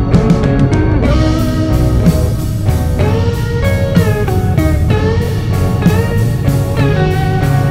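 Background music: electric guitar playing bending, sliding notes over a steady beat.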